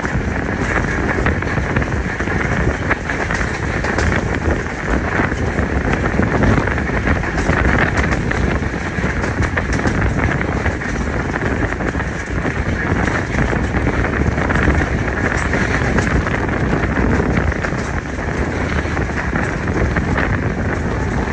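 Passenger train running at speed: a steady rumble of wheels on the track, with faint clicks throughout and wind buffeting the microphone.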